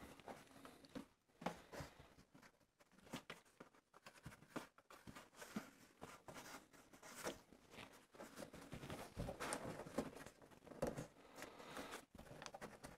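Faint, irregular rustling and scratching of fingers pressing and rubbing a strip of wetted gummed paper tape into the inside corner of a cardboard box.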